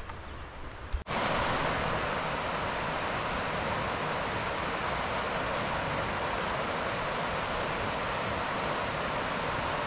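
Steady rush of a mountain stream's running water, starting abruptly about a second in and then holding even.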